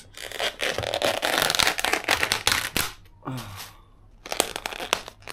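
Plastic takeout container lids being popped open: crinkling plastic with sharp snaps and clicks, in two bouts with a short pause between.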